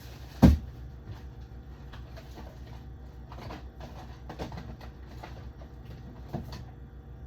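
A sharp knock about half a second in, then several softer knocks and clatters, over a low steady hum.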